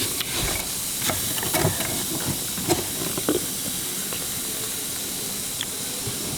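Steady hiss, with a few light clicks and knocks in the first few seconds.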